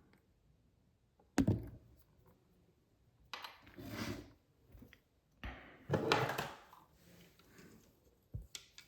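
Handling of faucet repair parts: a sharp knock about a second and a half in, then scraping and rustling as a part is worked and pushed into place, with a couple of small clicks near the end.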